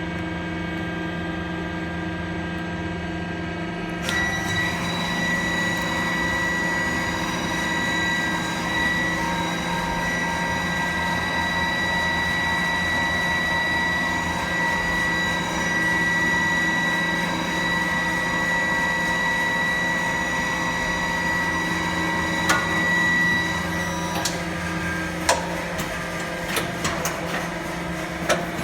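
Star JNC 32 Swiss-type CNC sliding head lathe running, a steady machine hum. About four seconds in it grows louder and a high steady whine joins, which stops a few seconds before the end, followed by a few sharp clicks.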